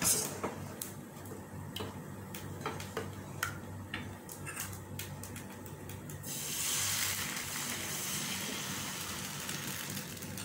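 Dosa batter poured from a ladle into a hot nonstick frying pan, sizzling with a steady hiss from about six seconds in as it starts to cook. Before that, a few light clicks.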